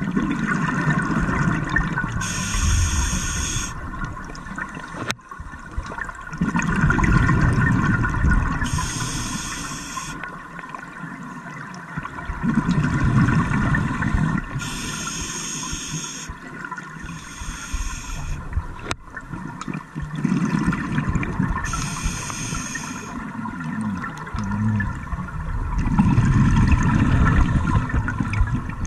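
Scuba diver breathing through a regulator underwater: a hiss on each inhale alternating with the low bubbling rumble of exhaled air, repeating every few seconds.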